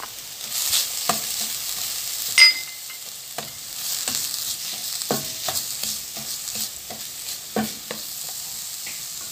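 Minced garlic, onion and ginger sautéing in oil in a stainless steel pot: a steady sizzle while a slotted spatula stirs and scrapes against the metal with irregular clicks. A sharp metal clink that rings briefly stands out about two and a half seconds in.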